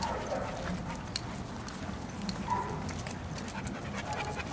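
Rottweiler panting with its tongue out in the heat, with a few faint scattered clicks.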